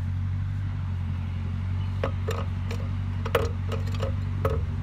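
Belarus tractor diesel engine idling with a steady low hum. From about two seconds in come light metal clinks and taps as the transmission's shifter linkage parts are handled and fitted, the sharpest a little past three seconds.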